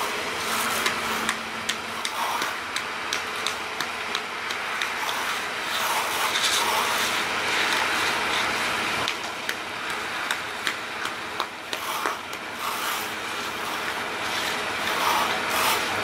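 Concrete mixer truck running as it pours, a steady noisy din, with frequent short sharp clicks and knocks from the work on the slab.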